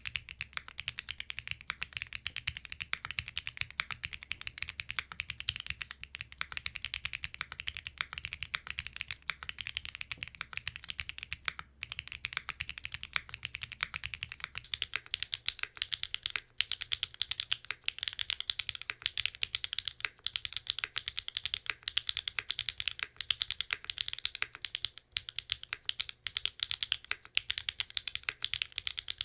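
Fast, continuous typing on a QK75N mechanical keyboard with SWK Catmint boxed linear switches, a flex-cut PCB and flex-cut plate, and case foam only. The keystrokes make a dense, even stream of crisp clacks.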